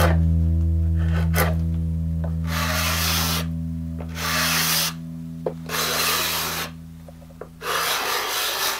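Hand smoothing strokes across the flat of a wooden serving platter: a hand tool rubbing on bare wood in four long strokes of about a second each, over background music with a bass line that fades out near the end.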